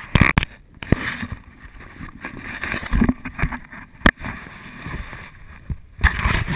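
Handling noise from a camera being moved around on a small boat: a string of sharp knocks and bumps, the loudest near the start and near the end, with rushing noise between them.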